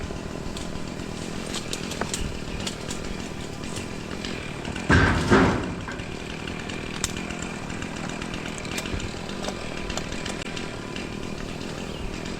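Battery-powered Milwaukee top-handle chainsaw running and cutting wood, with a loud, sudden double burst about five seconds in.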